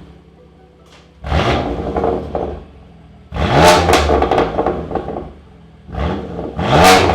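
BMW F80 M3's twin-turbo inline-six revved three times at standstill through a straight single midpipe with its secondary cats and mid resonator removed, each blip climbing in pitch and then dropping back toward idle.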